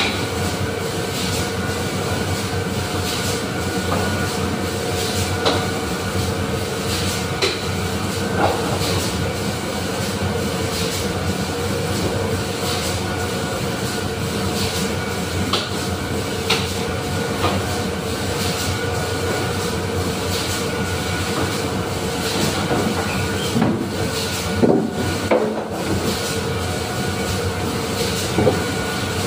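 Heavy factory machinery running: a steady mechanical drone with a constant hum and scattered metallic clicks and clanks, a few louder clanks near the end.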